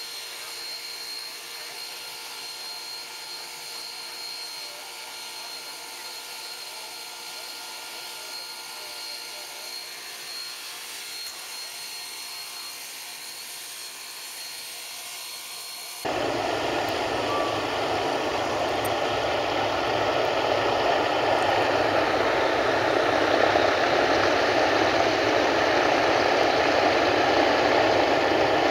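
Steam locomotive standing at rest, giving off a steady hiss with faint humming tones. About halfway through, a sudden cut to a much louder, steady roar of a Martin Mars flying boat's engines and water spray as it skims across a lake.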